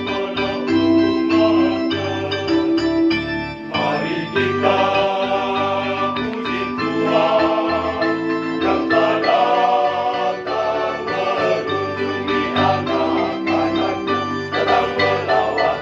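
A mixed choir sings a hymn in parts, accompanied by an electronic keyboard set to an organ-like sound. Only held keyboard chords are heard at first; the voices come in strongly about four seconds in.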